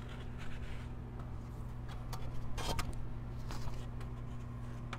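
Steady low electrical hum of room noise, with a few faint taps and rustles of objects being handled on the table around the middle.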